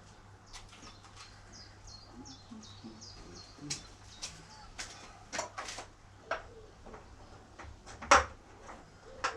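Irregular knocks and clicks of objects being handled, with one sharp, loud knock about eight seconds in. A quick run of short, high chirps comes around two to three seconds in.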